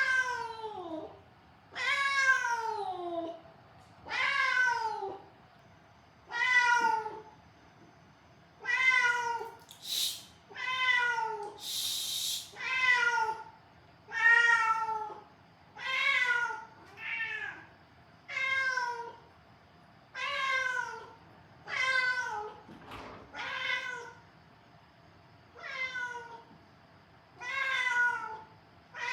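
Siamese-mix cat meowing insistently, one long call falling in pitch about every one and a half to two seconds, some sixteen times. This is the constant crying of a cat that is not settling as an indoor room cat.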